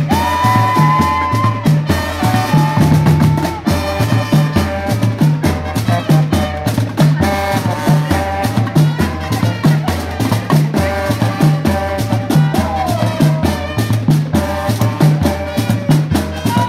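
Live brass and drum band playing an upbeat tune: a tuba bass line, trumpets and saxophones, over a steady beat from bass drums and snare drums. A few falling slides come in the brass in the second half.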